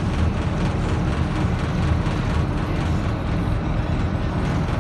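Scania K230UB4 bus's rear-mounted five-cylinder diesel engine running steadily under way, heard from inside the passenger cabin. A low, even rumble mixes with road noise.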